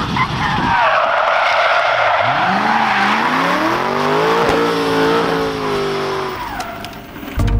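Supercharged Ford Mustang drift car sliding with a long tyre squeal that wavers and fades after about six seconds, while its engine revs up about two seconds in and holds at high revs.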